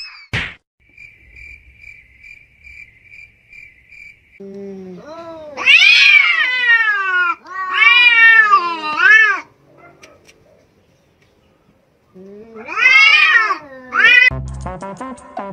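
Cats caterwauling at each other in a face-off: long, loud, wavering yowls that rise and fall in pitch, a second bout of yowling near the end. It is preceded by faint rhythmic high chirping.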